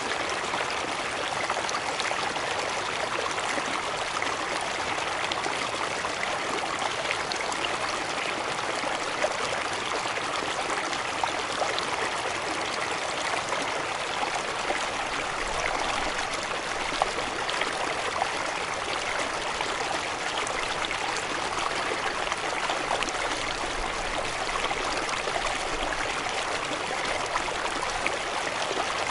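Waterfall water rushing and splashing steadily: an even hiss with small splashes scattered through it.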